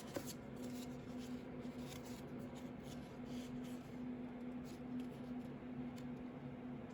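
Sparse, faint keystrokes on a Ducky One 2 Mini mechanical keyboard with Cherry MX Silent Red switches, coming as soft, irregular clicks over a steady low hum.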